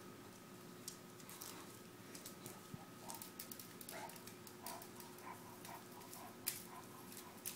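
Sphynx kittens play-fighting on a tile floor: scattered light taps and clicks from their paws, the sharpest about two-thirds of the way through. Alongside them come runs of short, soft animal sounds, a few a second, like a dog's breathing or whimpers.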